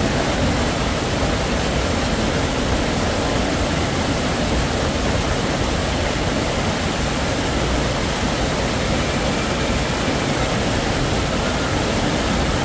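Steady rush of water, an even hiss with no rhythm or pitch that holds at the same level throughout.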